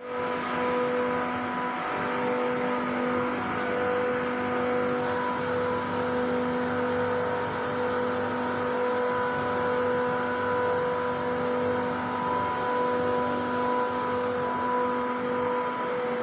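Water-cooled chiller's screw compressor running: a steady machine drone with a whine held at a few fixed pitches.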